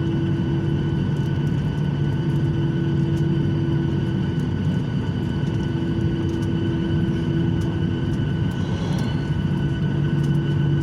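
Airliner jet engines running steadily, heard from inside the cabin: a constant hum over a steady wash of noise, with a few faint ticks.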